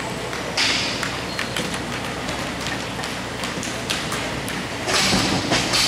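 Game sounds of an indoor ball hockey rink: scattered sharp clicks and knocks of sticks and ball on the floor, with a short hissy burst about half a second in and a louder one near the end.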